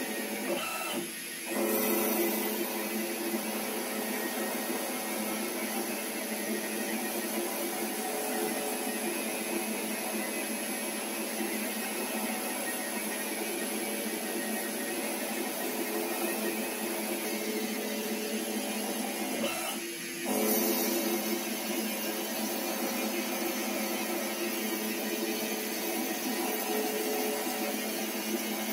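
Metal lathe turning a metal bar: a steady whine of motor and gearing with the hiss of the cut. It dips briefly about a second in and again near twenty seconds, each time coming back louder.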